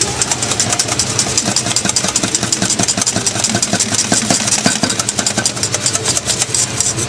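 Wire whisk beating thick Bisquick batter in a metal saucepan: fast, even strokes clicking and scraping against the pan, over a low steady hum.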